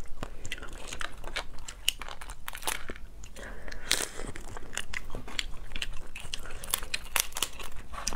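Cooked Chinese mitten crab shell and legs cracking and crunching as they are snapped apart by hand and bitten, with chewing in between; many sharp, irregular cracks.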